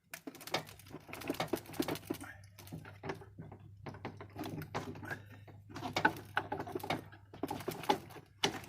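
Rapid, irregular clicking and rattling of plastic door-trim parts being handled and worked loose, over a steady low hum that stops shortly before the end.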